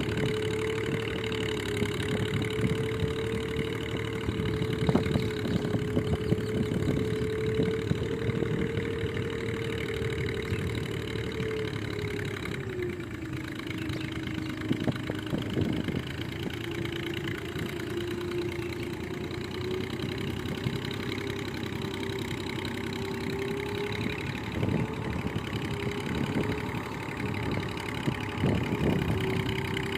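Massey Ferguson 135 tractor engine running steadily while ploughing. Its note sags about twelve seconds in, then slowly recovers over the next ten seconds or so, with a constant clatter underneath.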